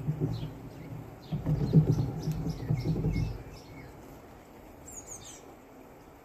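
Small birds chirping in short high calls, over a loud low rumble that dies away about three and a half seconds in.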